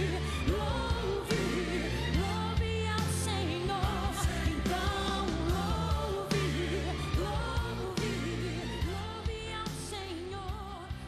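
Woman singing a gospel praise song into a microphone over a band backing with bass and drums. The music fades out toward the end.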